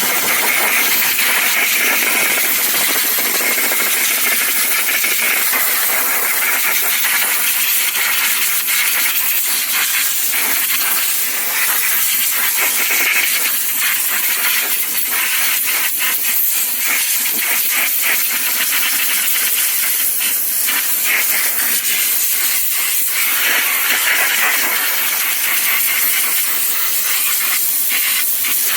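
Compressed-air blow gun hissing steadily as it blows water off a freshly pressure-washed aluminum wheel, its tone shifting a little as the air stream moves.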